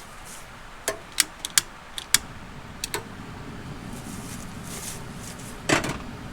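Cookware being handled: a run of sharp, irregular metal clicks and clinks, then a louder clatter near the end, over a low steady hiss.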